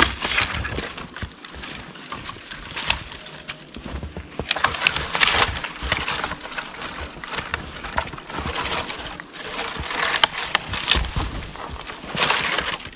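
Dry fallen branches rustling, crackling and snapping as a person pushes through and handles them, with boots crunching in snow. The crackling comes in uneven bursts, loudest about a third of the way in and again near the end.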